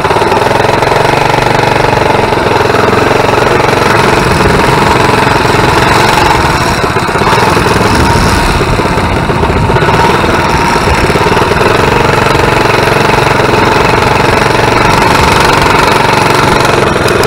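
Coleman mini bike's small single-cylinder engine running steadily under way at low speed, loud and close, easing off slightly about seven seconds in.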